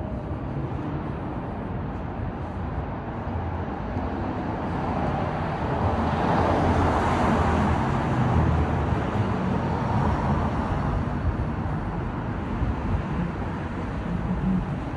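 City street traffic, with one vehicle passing close by: its engine and tyre noise swells to a peak about halfway through and then fades away.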